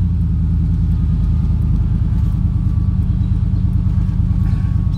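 Steady engine and road rumble of a vehicle on the move, with a faint steady whine above it.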